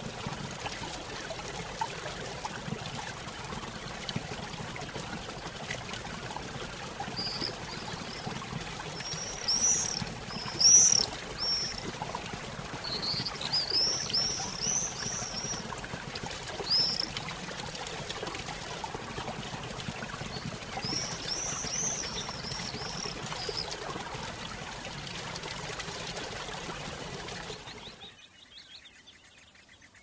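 Steady rushing water of a waterfall, with small birds chirping in three short flurries through the middle. Near the end the water sound fades out quickly, leaving it much quieter.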